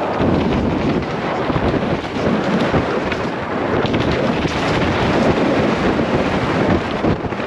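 Wind buffeting the microphone of a helmet-mounted camera, mixed with tyre noise on dirt, as a mountain bike descends a trail at speed. Light rattles and ticks from the bike come through now and then.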